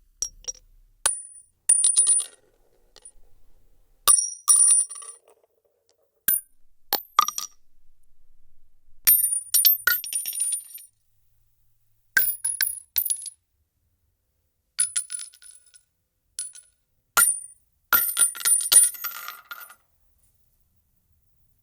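Spent brass shell casings dropping one after another onto a hard floor, each landing as a sharp metallic clink with a high ring and a short run of bounces and rattles, about ten drops with pauses between.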